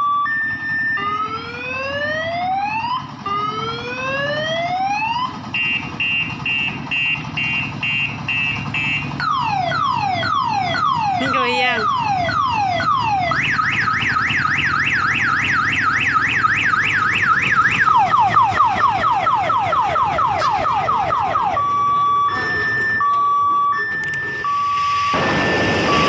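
An odong-odong ride's electronic siren sound unit cycling through its tones. It starts with a two-tone beep and slow rising wails, then plays a warbling tone, falling sweeps, a fast yelp and more falling sweeps, and goes back to the two-tone beep near the end. A loud rush of noise comes in just before it stops.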